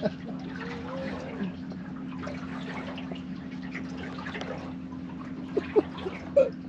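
Water lapping and trickling against the hull of a small fishing boat as it is rocked side to side, over a steady low hum.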